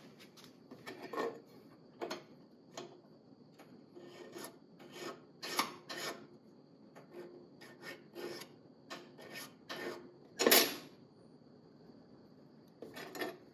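Flat hand file scraping in short, irregular strokes against the end of a steel piston ring, with one louder stroke near the end.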